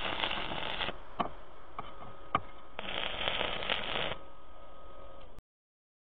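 Stick (arc) welder's arc crackling and sizzling as a bracket is tacked to a steel plate: one weld runs until about a second in, a few sharp snaps follow, then a second weld crackles for about a second and a half from near three seconds in. The sound cuts off abruptly about five seconds in.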